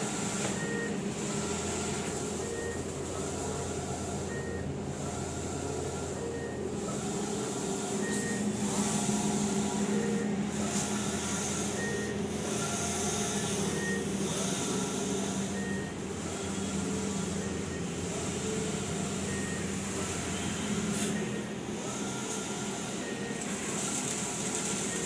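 Grando 512i large-format solvent banner printer running: a steady hum and hiss of its vacuum and cooling fans, with a short motor whine that repeats every couple of seconds as the print-head carriage sweeps back and forth.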